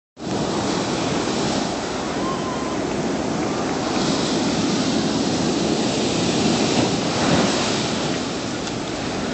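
Hurricane-driven ocean surf: a continuous rush of breaking waves with wind, swelling a little now and then.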